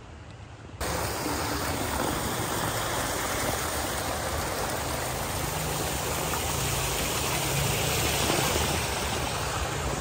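Steady rush of flowing water in the concrete raceways of a trout farm, starting abruptly about a second in.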